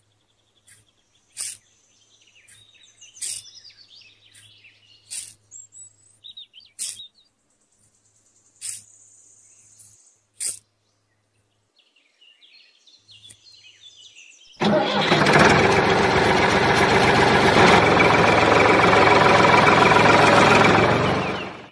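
A small toy shovel taps and scrapes about every two seconds as sand is scooped into a model tractor's trailer, with birds chirping. About fifteen seconds in, a loud, steady motor sound starts suddenly, runs for about seven seconds and dies away near the end.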